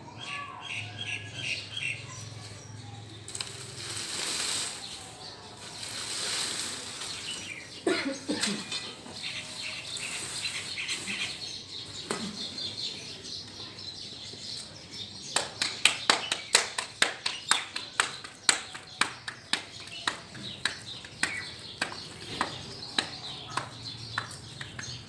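Hands slapping a ball of paratha dough back and forth between the palms to flatten it, a run of sharp pats, two or three a second, through the second half. Birds chirp briefly near the start.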